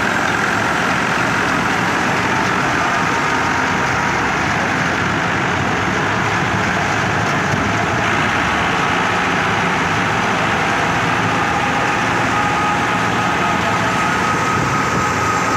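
Tractor diesel engine running steadily at working speed, driving a thresher, with the thresher's steady hum and a faint high whine.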